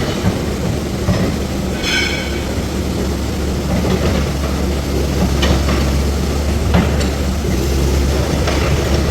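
A heavy vehicle running steadily, with a low rumbling hum, scattered rattles and knocks, and a brief high squeal about two seconds in.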